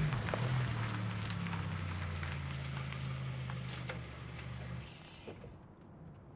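Honda CR-V's engine running as the SUV rolls in over gravel and comes to a stop, its hum dipping in pitch early on over the crunch of the tyres. The engine shuts off about five seconds in, leaving a few faint clicks as the driver's door opens.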